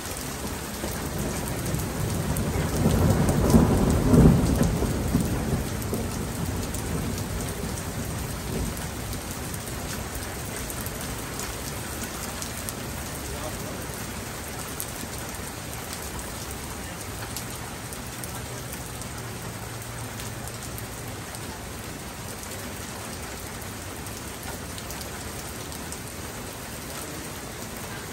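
Steady rain falling, with a low roll of thunder that builds about a second in, is loudest around four seconds in and rumbles away over the next few seconds.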